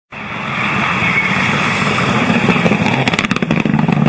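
Rally car engine running hard on a gravel stage, with a quick rattle of knocks about three seconds in as the car strikes and tips up onto two wheels in a crash.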